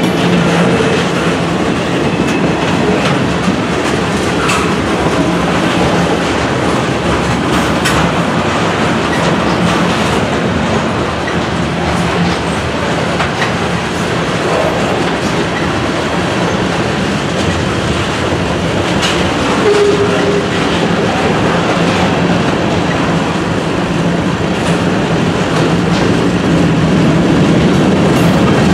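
Freight cars of a long mixed freight train rolling past close by: a steady rumble of steel wheels with clickety-clack over the rail joints. A brief wheel squeal comes about twenty seconds in.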